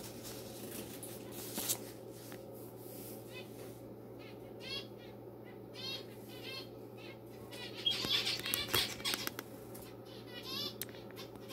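A small bird chirping in short series of quick, high chirps, the busiest run about two-thirds of the way in. A low steady hum runs underneath.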